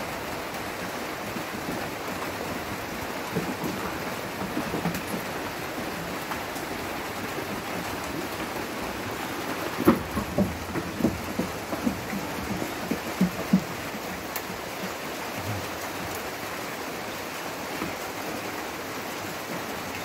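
A steady, even, rain-like hiss, with a sharp knock about halfway through followed by a few seconds of short thumps and scuffs.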